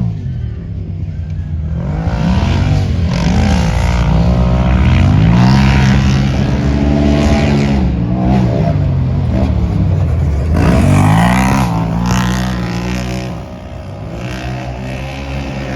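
Side-by-side UTV engine running hard, its pitch climbing and dropping again and again as it accelerates and shifts, easing off somewhat near the end.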